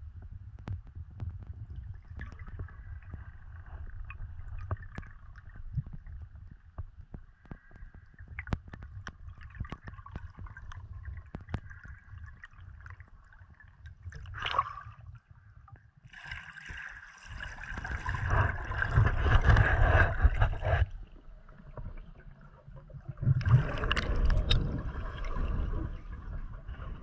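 Water heard through a GoPro's underwater housing: a muffled low rumble with scattered small clicks. Later come two louder stretches of sloshing and bubbling, one around the middle and one near the end.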